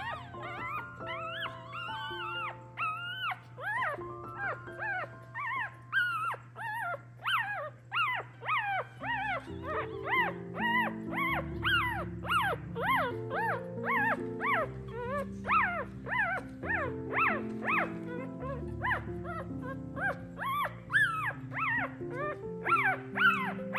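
Newborn puppies squeaking and crying as they call for their absent mother: many short, high cries that rise and fall, coming thicker from about the middle on, over background music.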